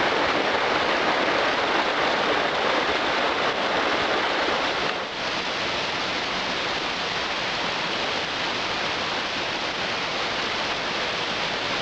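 Rushing water of a mountain stream tumbling over rocks, a steady even rush that drops a little in level about five seconds in.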